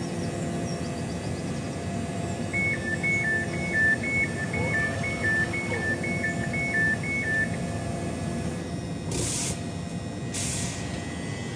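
Elizabeth line Class 345 electric train standing at the platform with its steady equipment hum, sounding its door-closing warning: a rapid alternating high-low two-tone beep lasting about five seconds. Two short hisses of air follow near the end.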